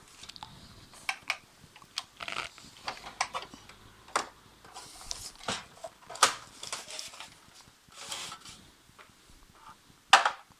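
Plastic side cover of an HP M104A laser printer being pried off: irregular clicks, snaps and scraping as its snap-fit catches let go, with the sharpest snap near the end.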